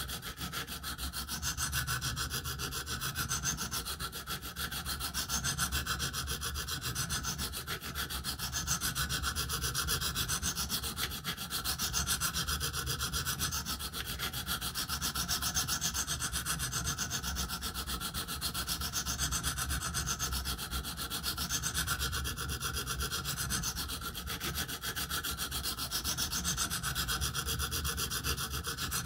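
Sharpening stone on a KME guided sharpener scraping back and forth along an M390 steel knife blade in steady repeated strokes, sweeping passes about every second and a half or two. It is grinding down chips and a rolled edge and blending the repair into the rest of the edge.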